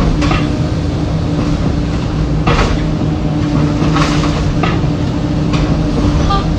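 Komatsu 360 excavator's diesel engine running steadily under load, with several sharp crunches and knocks of demolition debris being handled, the loudest about two and a half seconds in and again about four seconds in.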